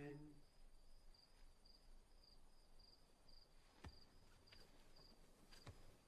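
Crickets chirping faintly in a steady rhythm, about two short high chirps a second. At the very start the last held note of men singing fades out, and a few faint knocks come in the second half.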